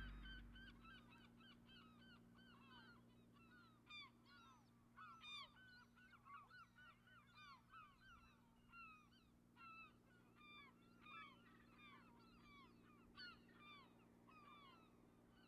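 Faint calling of a flock of birds: many short, downward-sliding calls overlapping several times a second, a few standing out louder.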